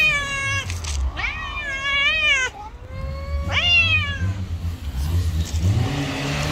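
Cat meowing three times, each call rising then falling in pitch, the middle one the longest.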